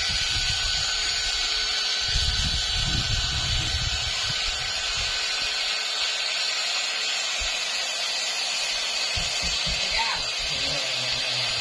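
Small electric air pump running steadily, blowing air into an inflatable paddling pool to firm it up.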